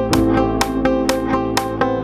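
Background music led by a plucked guitar, with a steady note about twice a second.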